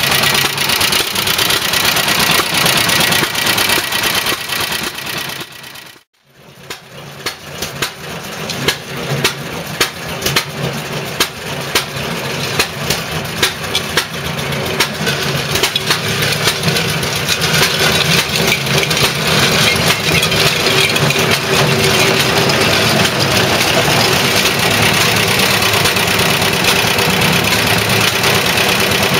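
Single-cylinder side-valve air-cooled petrol engine of a Dennis motor mower running. About six seconds in the sound drops away briefly. It returns as separate firing beats that quicken and build into steady running.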